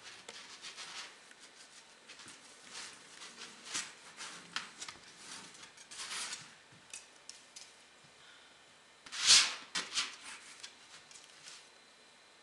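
Short, irregular scraping and rubbing strokes of paint being worked onto a canvas, with a louder stroke about nine seconds in.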